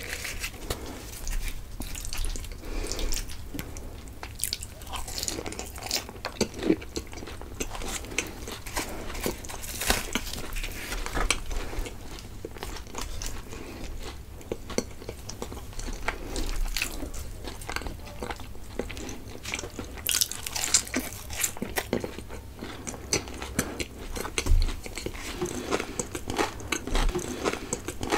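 Close-miked eating sounds: a person biting and chewing crunchy food, with many short, sharp crackles and crunches.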